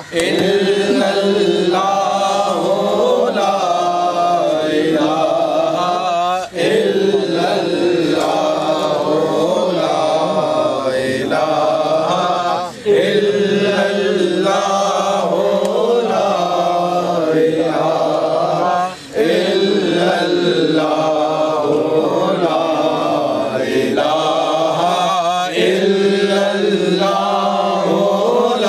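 Men's voices chanting a durood, the Arabic salutation on the Prophet, in long melodic phrases. The chant breaks off briefly for breath about every six seconds.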